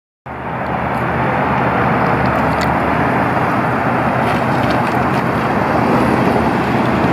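Fire truck's diesel engine running with road noise, a loud, steady sound from the moment it begins.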